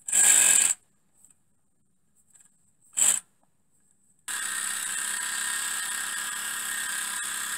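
Miniature three-cylinder steam engine: two short, sharp hisses of steam, the second about three seconds in. After a cut about four seconds in, a steady hissing whir as the engine runs on steam from its boiler.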